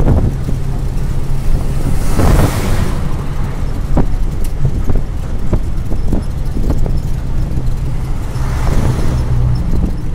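Steady low drone of engine and tyres on the road, heard from inside a moving vehicle, with occasional light knocks. The rushing noise swells louder twice, about two seconds in and again near nine seconds.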